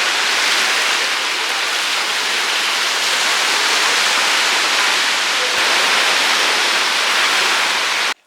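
Steady rushing of water, an even hiss with little bass, that cuts off suddenly near the end.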